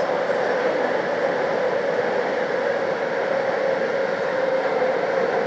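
Taipei Metro C381 metro train running at speed through a tunnel, heard on board: a steady rumble with a constant hum near one middle pitch.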